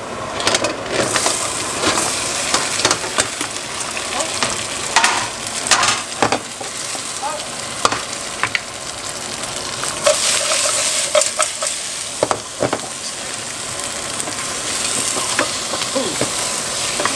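Raw crayfish pieces sizzling in hot oil with fried chilli and garlic in a stainless steel pot, stirred with a wooden spoon. The sizzle comes in strongly just after the start and runs on steadily, with scattered knocks against the pot.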